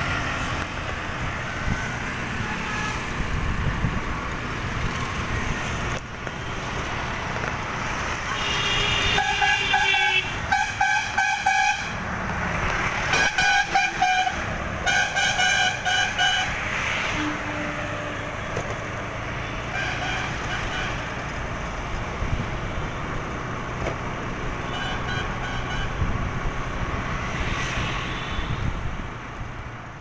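Road traffic and wind rumble heard from a moving vehicle on a city road, with vehicle horns honking in a run of short blasts from about nine to sixteen seconds in, and a few fainter honks later.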